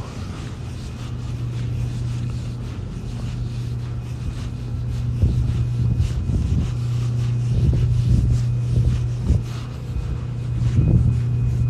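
A steady low hum in an empty road tunnel, with a few faint soft footfalls in the second half.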